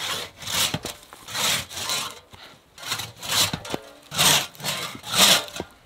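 Sharp one-man crosscut saw cutting a log on a sawbuck, rasping in even strokes about twice a second.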